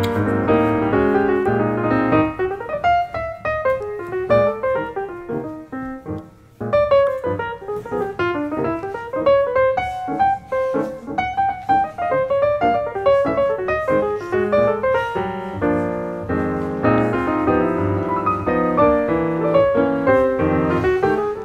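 Background piano music, a melody of single notes over chords, with a brief break about six and a half seconds in before it picks up again.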